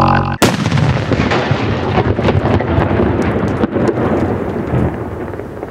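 Firework explosion: a sudden loud bang about half a second in, then a dense crackling rumble that slowly fades out.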